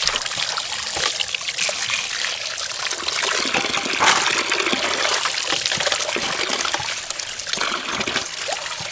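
A stream of running water pouring into a metal basin, splashing as hands rinse and stir meatballs in the water, loudest about four seconds in.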